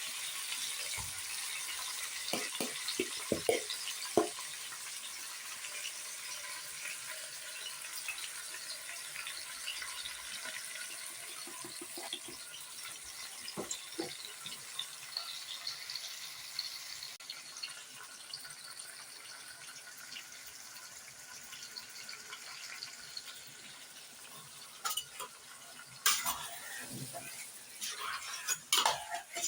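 Food sizzling and crackling in a hot pot, slowly dying down, with a few clinks and scrapes of a utensil against the pot, the loudest of them near the end.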